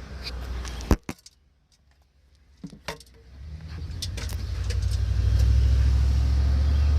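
Diesel truck engine with a low rumble, broken by a couple of sharp clunks about a second in. There is a brief hush, then more clicks, and the low engine rumble builds back up and holds steady and loud.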